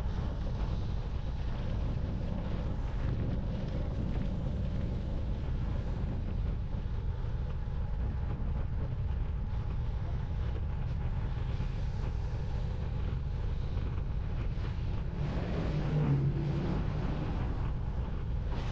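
Wind buffeting the microphone of a camera riding along on a road bicycle: a steady low rumble. About three seconds before the end comes a brief louder swell with a low hum in it.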